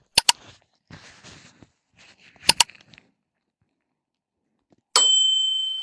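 Subscribe-button animation sound effects: two quick double mouse clicks with a soft swish between them, then a bright bell ding about five seconds in that rings out and fades.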